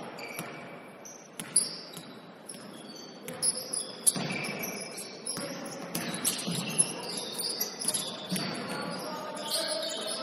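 Basketball game sounds on a gym court: a ball bouncing at irregular intervals, with short high sneaker squeaks on the floor.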